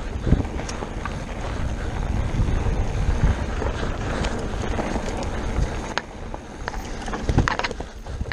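Mountain bike descending a dirt singletrack at speed: wind buffeting the microphone and tyres rumbling over the trail, with sharp clicks and rattles, more of them near the end.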